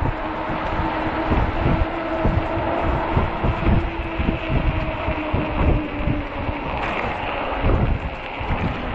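Wind buffeting the microphone of a moving electric fat-tire bike, over a steady motor whine from the 48 V e-bike that fades out about six seconds in.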